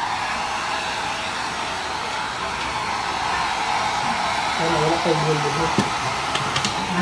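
Handheld electric hair dryer running steadily, blowing air onto a wet dog's coat with an even rushing hiss and a steady whine.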